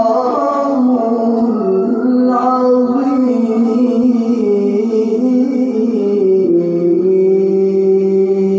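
A man's voice reciting the Qur'an in the melodic tilawah style, sung into a microphone. Long held, ornamented notes waver in pitch, then settle onto a lower note about six and a half seconds in that is held steady.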